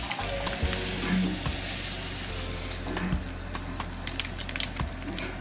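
Linseed poured from a plastic bag into a stainless steel pot of water: a steady hissing patter of seeds for about three seconds, then scattered ticks as the last seeds drop. A low steady hum runs underneath.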